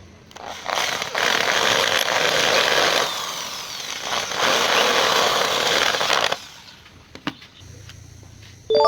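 A power tool working wood, a loud, noisy run lasting about six seconds that eases briefly in the middle and stops suddenly, followed by a single click.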